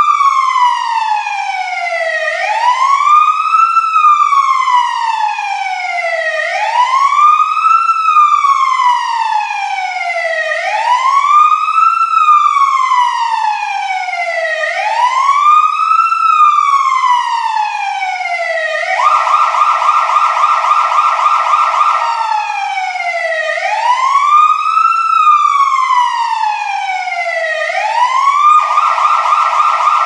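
Fire truck siren wailing, its pitch rising quickly and falling more slowly about once every four seconds. About two-thirds of the way through it switches for a few seconds to a fast rapid warble, then back to the wail. It switches to the warble again near the end.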